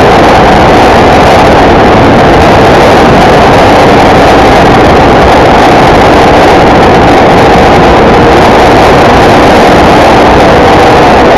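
Motorcycle riding steadily at speed, its engine drone buried in loud, unchanging wind and road noise on the on-board camera's microphone.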